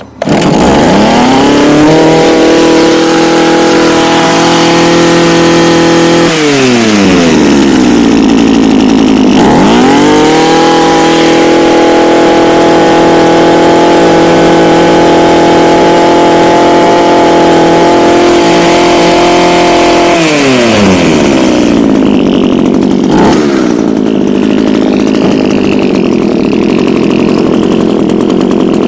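Echo HC2000 hedge trimmer's small two-stroke engine running just after a cold start: revved to full throttle and held for about six seconds, dropped back toward idle, then revved and held again for about ten seconds. It then falls back to idle, with one short blip of the throttle, and keeps idling steadily.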